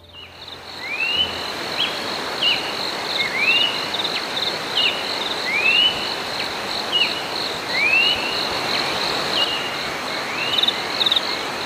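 Forest insect chorus at dawn: a steady high trill over a dense hiss of insects. A short upswept call repeats about once a second throughout.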